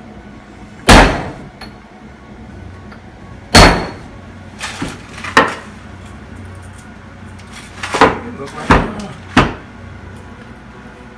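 A series of sharp, loud knocks at uneven intervals, about seven in all. The first two are the loudest, and the last three come quickly in a row near the end.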